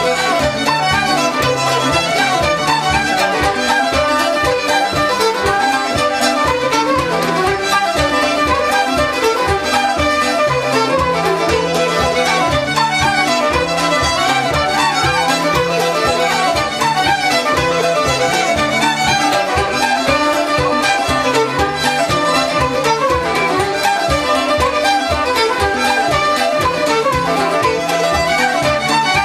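Lively instrumental folk music led by a fiddle, over a steady, fast beat and a sustained bass.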